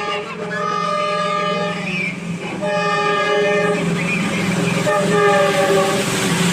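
WDG4 diesel locomotive's horn sounding two long blasts, the second one longer, as the train runs through the station without stopping. A steady low drone lies under the horn throughout.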